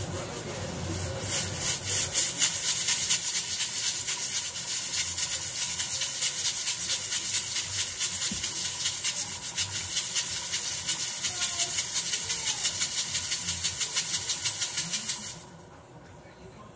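Rapid, even scraping strokes, about five a second, that stop suddenly near the end.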